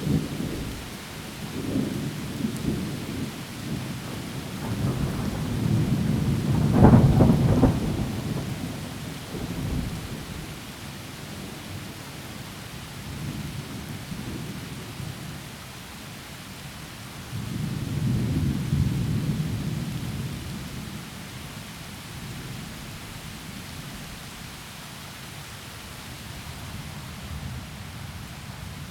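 Heavy rain falling steadily in a forest, with rolling thunder: a loud crack and rumble a few seconds in, and a second, softer rumble about two-thirds of the way through.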